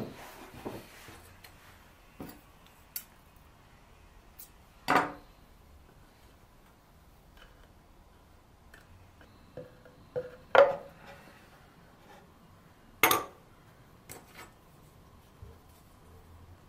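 A steel rule and a metal square being handled and set against the birch chest and workbench: scattered small clinks and knocks of metal on wood. The three loudest come about five, ten and a half and thirteen seconds in, with a brief ring just before the middle one.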